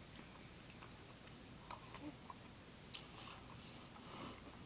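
A person chewing a mouthful of food with her mouth closed, faint, with a few small wet mouth clicks in the middle.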